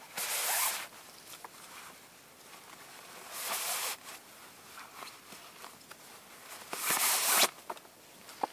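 Three short bursts of rustling, about three seconds apart, with a few faint clicks between them.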